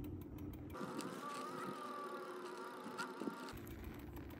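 The Mukkpet Ninja e-bike's electric motor whines faintly at full throttle on an almost dead battery, barely pulling the bike along at 1 to 2 mph. The steady whine starts about a second in and stops a little before the end, with a low rumble around it.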